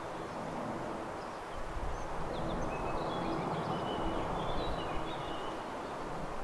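Small birds chirping, a scatter of short high calls through the middle, over steady outdoor background noise with a low wind rumble.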